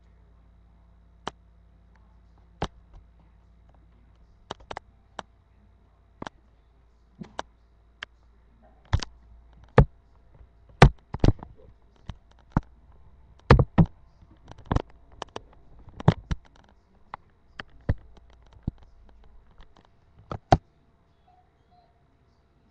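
A string of sharp, irregular clicks and knocks, a few at first, then coming thick and loud in the middle before stopping shortly before the end.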